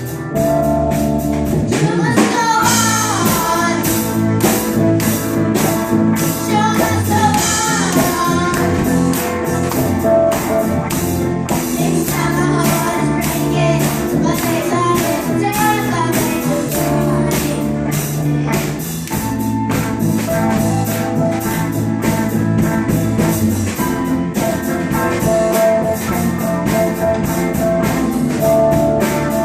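A rock band playing: drum kit, guitars and bass, with a wavering lead melody line over them.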